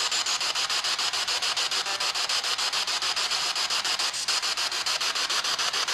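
Spirit box sweeping rapidly through radio stations: hissing static chopped into quick, even pulses, about nine or ten a second, with no clear voice in it.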